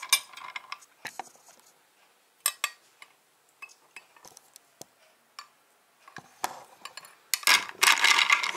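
Metal spoon clinking against a glass jug as it stirs Himalayan salt chunks into water to dissolve them. The clinks come one at a time, sparse in the middle, then run together densely near the end.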